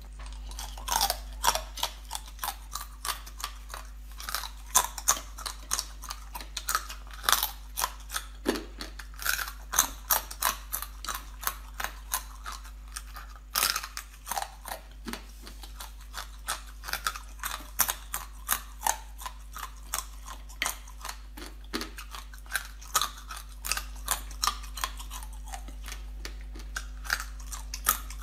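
Close-miked chewing and biting through small whole crabs, the shells cracking in a rapid, uneven run of sharp crunches.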